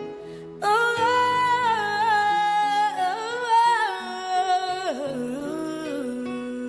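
Slow gospel song: a solo voice comes in about half a second in, singing long held notes that slide between pitches over soft sustained chords.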